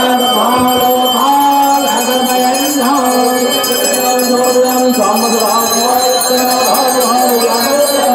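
Aarti being sung, a melody of long held notes, over bells ringing continuously.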